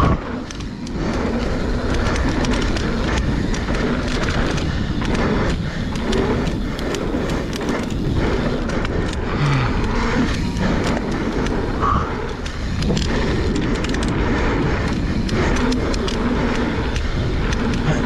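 Mountain bike rolling fast down a dirt flow trail: a steady rush of knobby tyres on packed dirt, with frequent rattles and clicks from the bike over bumps and jumps.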